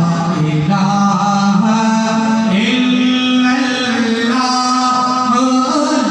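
A man chants an unaccompanied Islamic devotional recitation into a handheld microphone. His voice holds long melodic notes that step up and down in pitch.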